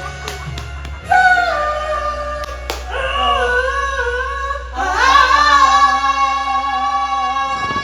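A solo voice singing long, held notes without words, in three phrases that begin about one, three and five seconds in, over a steady low backing tone.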